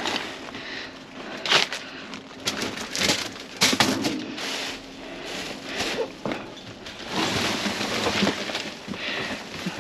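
Rummaging through discarded items in a dumpster: irregular knocks, clatters and rustling as things are moved and handled.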